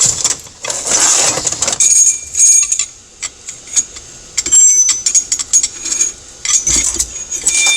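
Steel transmission parts (gears, washers and synchro pieces off a G56 main shaft) clinking and ringing against each other and the bench as they are handled and set down, several sharp metallic clinks with short rings. A rough, scraping noise comes first.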